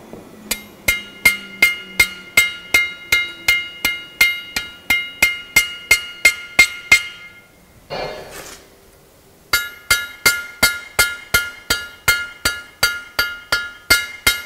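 Rapid, even blacksmith hammer strikes, about three to four a second, on a hot steel leaf on an anvil, each blow leaving the anvil ringing. The cross peen of the hammer is texturing the leaf's veins. The hammering stops for about two seconds past the middle, then resumes.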